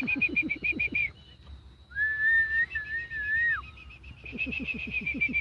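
A person whistling one held note for about a second and a half, with a short dip in pitch in the middle. Before and after it comes a rapid pulsing call, about nine pulses a second.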